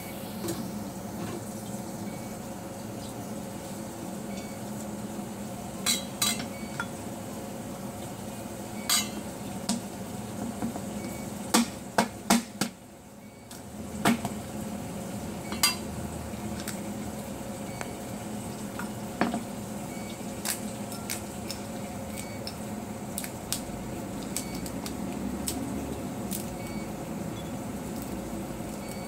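Sharp knocks and clicks of kitchen work on a cutting board: a cleaver cracking open a dried monk fruit (luo han guo) and its brittle shell pieces going into a ceramic bowl, over a steady low hum.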